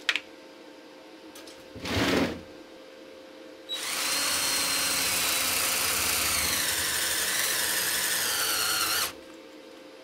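Power drill with a step drill bit boring into the lead terminal post of a car battery: a brief spin about two seconds in, then the drill runs steadily for about five seconds and stops abruptly.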